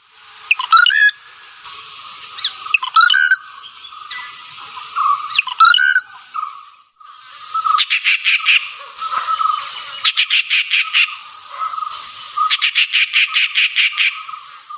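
Rufous treepie calling: three calls that glide up and down in pitch, then three bursts of rapid, harsh clicking rattles.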